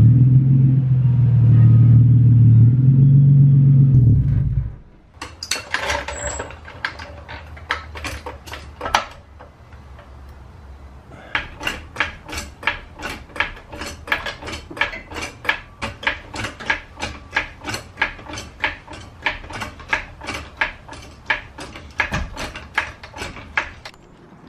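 A Nissan 350Z's V6 engine running steadily, then shut off about four and a half seconds in. After that comes a long run of sharp metallic clicks, settling to about two a second, as a floor jack under the car is pumped.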